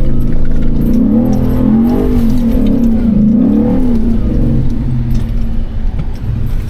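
First-generation Ford Raptor's V8 engine running hard off road, its pitch rising and falling several times in quick succession as the throttle is worked, then settling lower. A loose rattle runs along with it.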